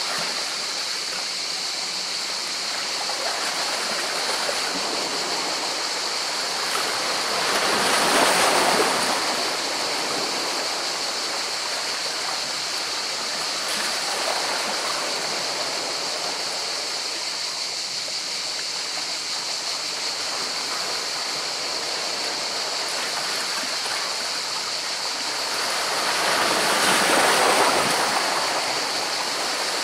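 Sea water washing in among rocks: a steady rush of water with two bigger waves swelling and breaking, about eight seconds in and again near the end.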